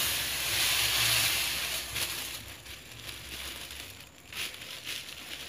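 Granulated sugar pouring from a plastic bag onto steamed pumpkin pieces: a steady hiss for the first two seconds that fades away, then a few short rustles of the bag near the end.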